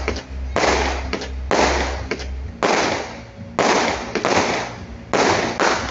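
Fireworks display: aerial bursts going off one after another, about one sharp bang a second, each trailing off in a short fading crackle.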